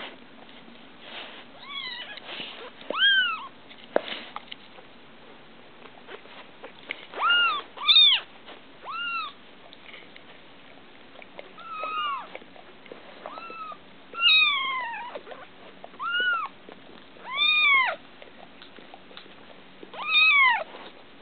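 Neonatal kittens mewing: about a dozen short, high cries, each rising and falling in pitch, coming at irregular intervals.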